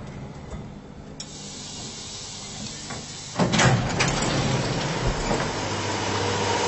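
1970s Otis lift arriving and its doors sliding open, letting in a hiss about a second in. About three and a half seconds in, a sudden, louder rushing noise with a low rumble sets in and stays steady.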